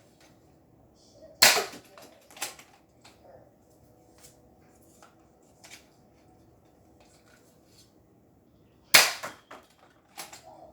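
Nerf blaster firing foam darts: two sharp snaps, about seven and a half seconds apart, each followed within a second by lighter clacks, with faint clicks between.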